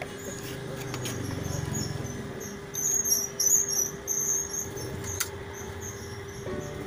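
A cluster of short, high-pitched squeaks about three to four seconds in, over a steady hum and a few clicks: the 'nyit' squeak of a totally dead LG 21-inch slim TV, coming from its circuit board.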